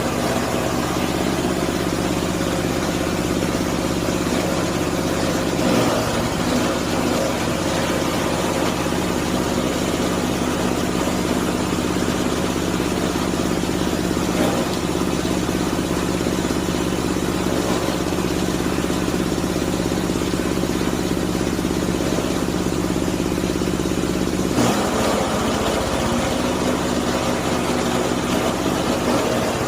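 Type SM30 multipurpose grinding machine running steadily while grinding veneer waste: a constant engine-like drone under a dense grinding hiss. Its pitch briefly dips about 6 seconds in and again near 25 seconds, as if taking on load.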